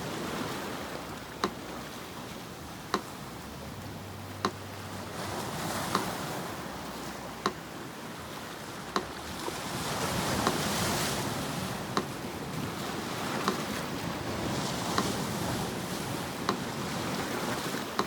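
Sea surf washing in waves that swell and ebb, overlaid with a metronome ticking slowly and evenly, once every second and a half (40 beats a minute). The sharp ticks are the loudest sounds, and the surf swells loudest about ten seconds in.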